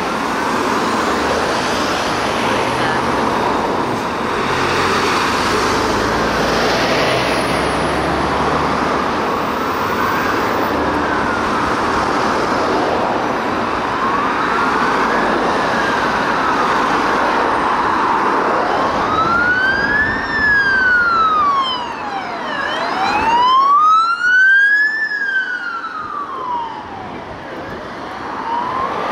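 2021 MAN TGE ambulance siren on a wail, sweeping slowly up and down about every five seconds. It is faint at first and grows loud in the second half as the ambulance comes through, over heavy road traffic.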